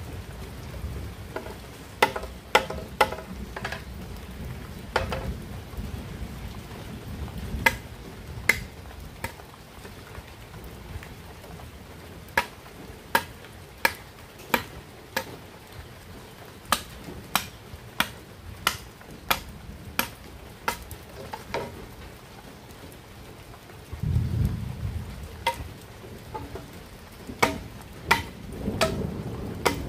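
Machete blade striking green bamboo poles: a series of sharp knocks, scattered at first, then coming steadily about once or twice a second. Under them runs a low rumble of thunder that swells near the end.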